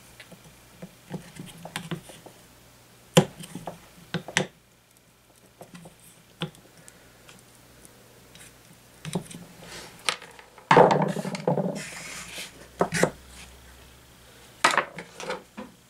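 A steel screwdriver prying a plastic fan blade off its motor shaft: scattered clicks and knocks of metal against plastic, with a louder scraping clatter about eleven seconds in.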